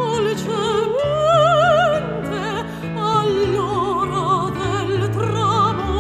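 A woman singing opera with a wide, fast vibrato over an instrumental accompaniment of held low notes. About a second in she rises to a long held higher note, then comes back down.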